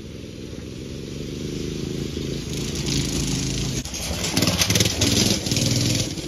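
Go-kart engine running hard as the kart approaches across gravel, growing steadily louder, with the tyres crunching and spraying loose gravel from about two and a half seconds in.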